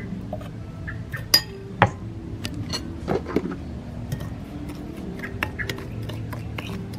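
Metal spoon clinking against a ceramic bowl while stirring sugar and salt into cream. There are two sharp clinks about a second and a half in, then a run of lighter, quicker clinks through the second half.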